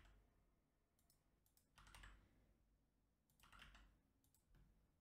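Near silence broken by a few short, faint clusters of computer keyboard and mouse clicks.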